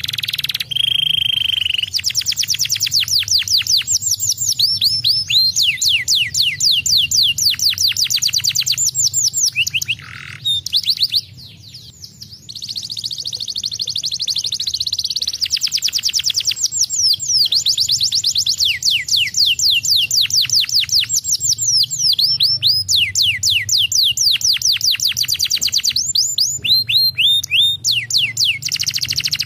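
Domestic canary singing a long song. It runs fast rolls of quickly falling whistled notes, about seven a second, with steady trilled passages between them and a brief break about a third of the way in.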